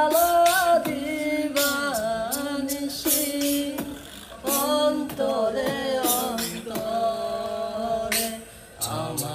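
A voice singing a Bengali song in long, held phrases whose pitch bends and wavers, with short breaks between lines.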